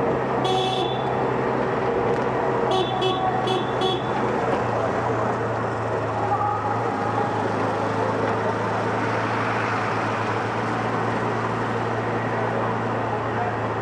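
Auto-rickshaw engine running steadily with road noise while under way in traffic. Short high horn toots sound over it: one about half a second in, then four quick beeps between about three and four seconds in.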